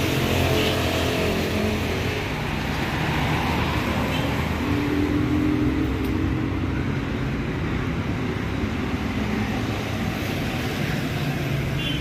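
City road traffic: cars and other vehicles passing close by, engines running in a steady rumble of traffic noise.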